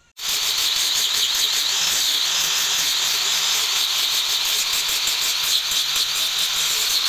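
Steady abrasive sanding rasp that cuts in abruptly just after the start and runs on unbroken.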